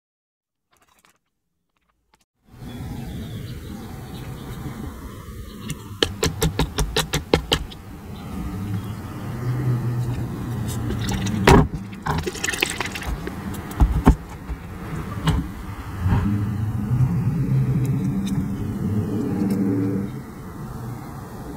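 Drink bottles being handled and set down on a table: a quick run of small clicks, then several sharp knocks, over a steady low rumble.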